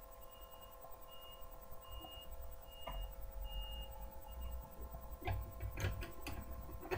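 Steady electrical hum made of several tones over a low throb. From about five seconds in comes a run of small sharp clicks and knocks as the eyeshadow palette and brushes are handled.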